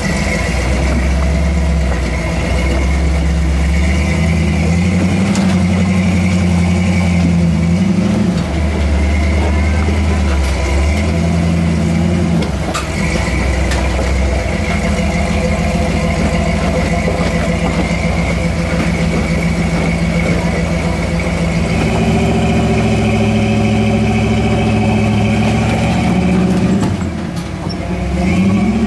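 Rock buggy's engine revving up and down in surges while it crawls slowly over boulders, dropping briefly near the end before picking up again.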